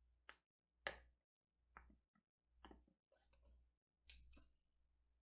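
Faint, sharp clicks and light knocks of a cardboard box being handled, coming irregularly about once or twice a second.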